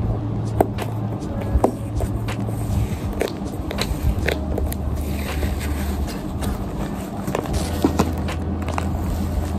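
Cardboard shipping box being handled and opened: packing tape peeled off and the box flap lifted, giving many short scratches, taps and crinkles. Background music with a low, steady bass line plays throughout.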